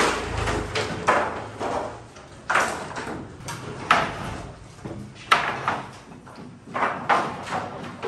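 Wooden shoring poles knocking and clattering, a sharp hollow knock about every second and a half, each trailing off briefly, typical of timber props being struck loose or dropped onto a pile during formwork stripping.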